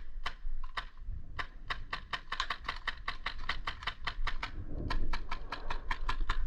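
Airsoft rifle firing rapid shots as sharp clicks. A few single shots come first, then a fast string of about eight or nine a second for some three seconds, a brief pause, and another fast string.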